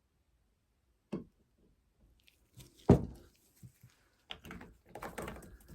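Objects handled and set down on a work surface: a few separate knocks, the loudest about three seconds in, followed by a run of clattering handling noises.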